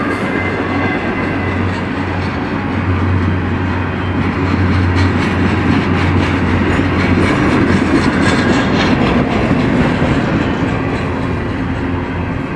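Double-stack intermodal freight train's well cars rolling past: a steady rumble and rattle of steel wheels on the rails over a low hum, a little louder in the middle.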